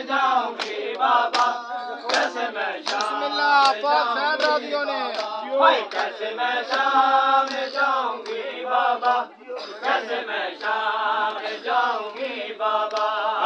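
A group of male voices chanting a noha, a Shia lament, in unison, with sharp rhythmic slaps of hands on bare chests (matam) about once or twice a second.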